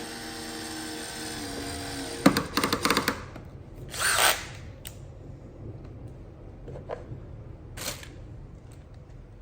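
Cordless drill-driver running as it drives a screw into wood, then its torque clutch clicking rapidly for about a second as the screw seats. A short rushing burst and two light knocks follow.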